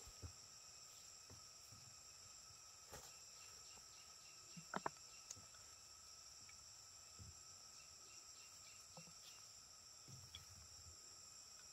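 Quiet forest ambience: insects trilling steadily, with a faint run of small regular ticks. A few soft clicks stand out, the loudest a quick double tap about five seconds in.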